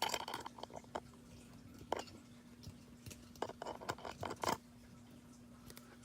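Irregular scraping, clicking and rattling from hands handling small metal parts: a burst at the start, a single sharp click about two seconds in, and a flurry of clicks and scrapes a second later that stops about halfway through the second half. A faint steady hum runs underneath.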